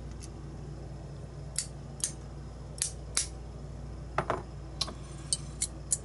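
Light metallic clicks and clinks of a small steel tool working in a brass lock cylinder while its pins and springs are taken out, about ten irregular taps with a short scrape about four seconds in.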